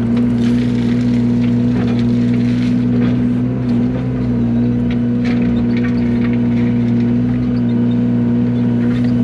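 Yanmar mini excavator's diesel engine running steadily under work, with a few light clicks and scrapes over it as the bucket is worked.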